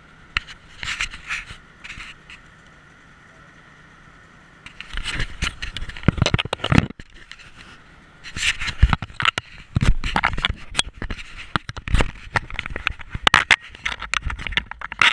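Irregular clicks, scrapes and knocks on a camera mounted on a small bike's handlebars. There are a few scattered clicks at first, then from about five seconds in a dense, constant rattle with a low rumble as it rolls over paving slabs.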